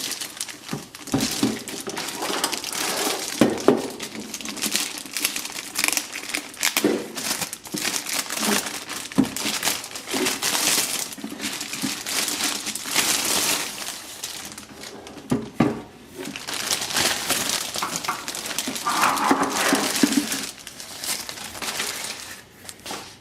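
Plastic packaging crinkling and rustling as it is handled and unwrapped, with scattered light knocks of parts being set down.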